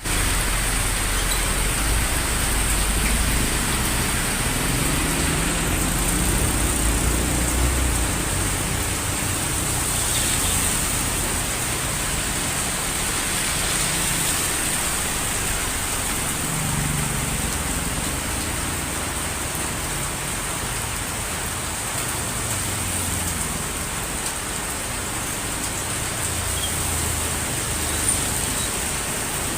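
Heavy rain falling steadily, an even hiss, with the low rumble of passing road traffic swelling and fading underneath, strongest in the first several seconds.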